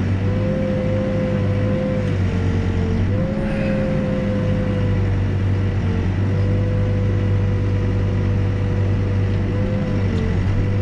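Backhoe's diesel engine running steadily under digging load, with a steady higher whine that dips briefly in pitch about three times as the bucket works the footing ditch.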